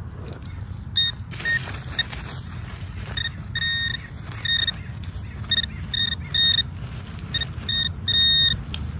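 Metal detector beeping over a buried target: short and longer beeps at one high pitch, coming irregularly. A brief rustle of handling or digging sounds about a second in.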